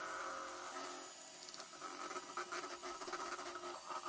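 Electric mixer running steadily and faintly as it whisks eggs, SP emulsifier and powdered sugar into a thick, pale batter, with light irregular ticking over the motor's whine.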